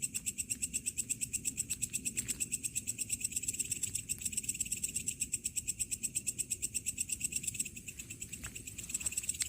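Crickets chirping in a fast, even pulse of many chirps a second, dipping briefly in loudness near the end.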